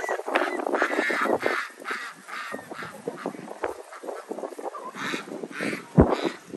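Domestic ducks quacking in a quick run of short, repeated calls. A gust of wind buffets the microphone near the end.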